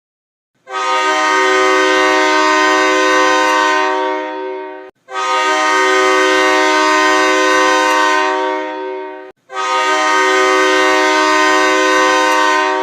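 Hockey arena goal horn, an air horn sounding a chord of several tones, blown in three long blasts of about four seconds each, the first starting under a second in and each tapering off slightly at its end.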